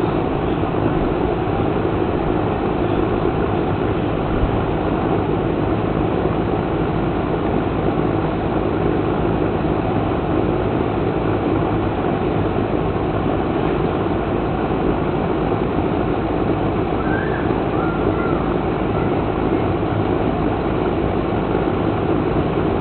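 A steady rushing noise, even in level and without any rhythm or pitch.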